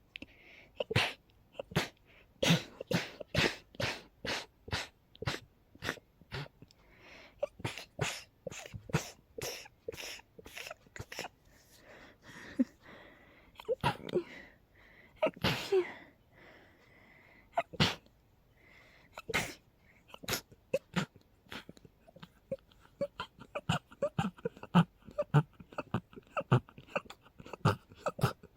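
A person sneezing over and over in rapid runs, short sharp sneezes about two a second, with a few longer, breathier ones around the middle and a faster run of smaller sneezes toward the end. A sneezing fit that the sneezer puts down to a cold together with high pollen and dust.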